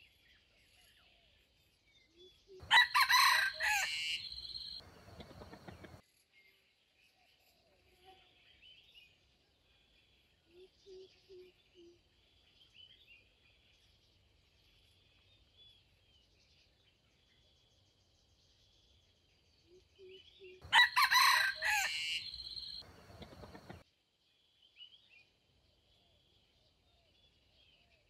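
Jungle fowl rooster crowing twice, loud crows about 18 seconds apart, with a few soft low clucks between them. Faint chirping runs underneath.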